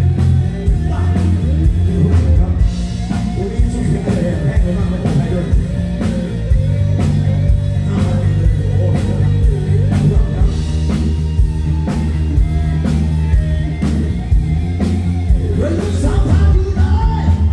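Live rock band performing through a stage PA: a male lead singer sings in Thai over drums, electric bass and keyboard, with a steady beat.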